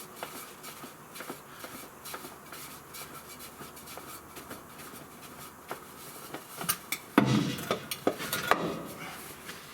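Small clicks and scrapes of parts and tools being handled, then a louder clatter of knocks about seven seconds in.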